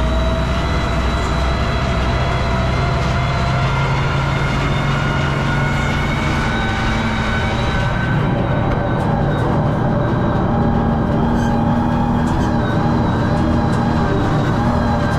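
Valmet 1280 tractor's diesel engine running steadily under load, a deep rumble with a steady whine on top; the engine note shifts slightly about eight seconds in.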